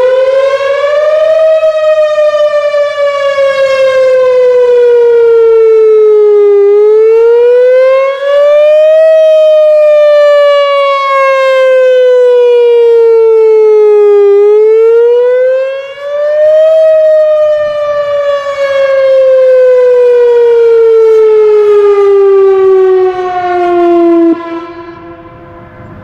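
Whelen 4004 electronic outdoor warning siren sounding its wail/attack test tone: the pitch rises quickly and then falls slowly, three times about seven and a half seconds apart. Near the end it cuts off sharply, leaving a much fainter steady tone.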